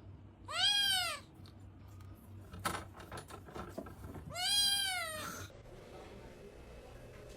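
A cat meowing twice, each meow a drawn-out call that rises and then falls in pitch, with a few faint clicks between the two.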